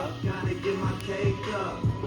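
Background music with a thumping bass beat.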